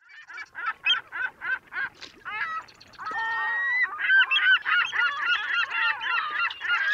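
Birds calling with goose-like honks: a run of short calls about three a second, then from about three seconds in many calls overlapping, as from a flock.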